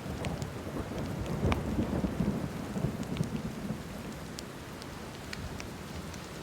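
Steady rain with a low rumble of thunder that swells over the first few seconds and then fades, and a wood fire crackling with scattered sharp pops.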